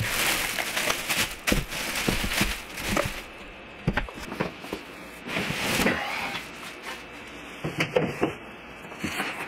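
Packaging being handled: rustling and crinkling with irregular knocks and clicks, starting suddenly.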